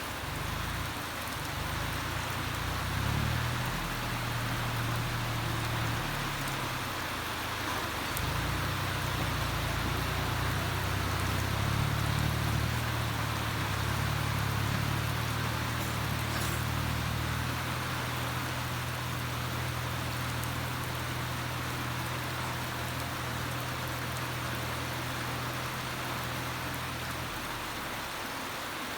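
Steady heavy rain hissing, with a Kubota farm machine's engine running underneath, rising and falling a little in level; the engine sound stops a second or two before the end while the rain goes on.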